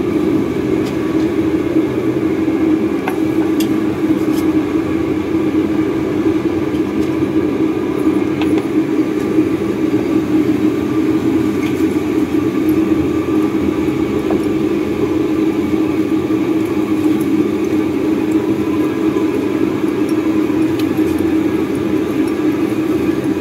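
Steady low drone of street traffic, with a few faint clinks of a metal spoon against a glass as tea is stirred.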